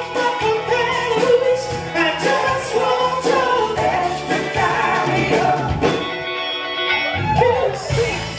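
Live soul band playing, with several voices singing in harmony over drums and backing instruments. The cymbals drop out for a moment about six seconds in.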